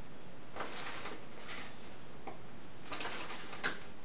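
Dry loose herbs rustling as a hand scoops them from a glass bowl and tips them into a used coffee bag, making a few soft rustles and crinkles.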